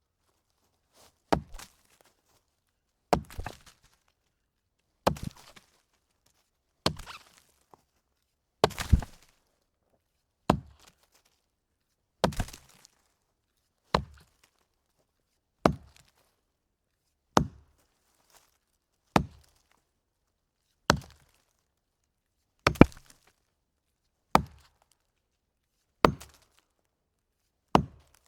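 An axe chopping into a wooden log: about sixteen sharp, evenly paced strikes, one every second and a half to two seconds, each a solid thunk into the wood that dies away quickly. A few strokes land as a quick double hit.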